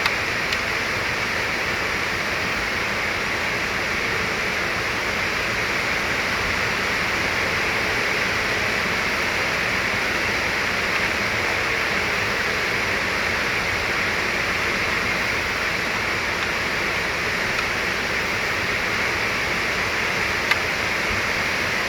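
Steady, even hiss with no change in level, with a couple of faint small clicks, one about half a second in and one near the end.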